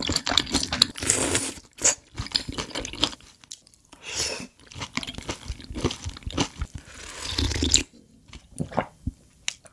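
Close-miked mouth sounds of eating noodle soup: wet chewing with many small clicks, and slurps of noodles and broth about four seconds in and again near the end.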